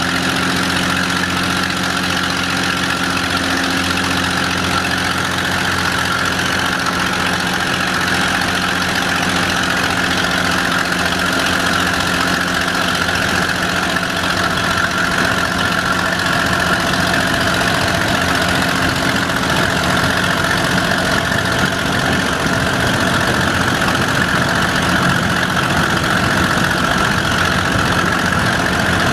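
Diesel multiple unit's engine running steadily under power, with the rolling noise of the moving train, heard from an open carriage window.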